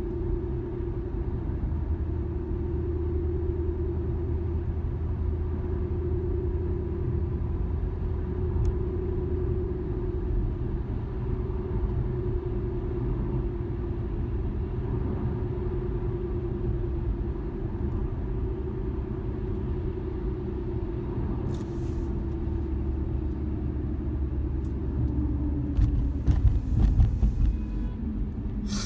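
2013 Infiniti G37S coupe driving, with low road rumble and a steady hum that swells and fades every couple of seconds. The owner suspects a wheel bearing or hub rather than the tires the dealer blamed. A few short knocks come near the end.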